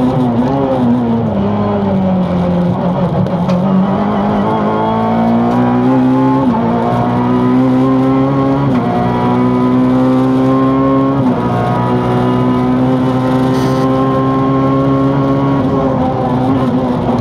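Peugeot 207 rally car engine at full effort on a special stage. Its pitch falls as the car slows over the first few seconds, then climbs as it accelerates, broken by three gear changes, and holds high revs near the end.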